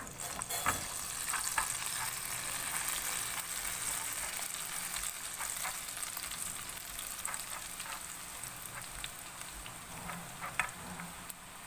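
Strands of gathia dough dropping through a perforated jhara into hot oil in a kadai, the oil sizzling steadily as they fry, with a few light clicks; the sizzle eases off a little near the end.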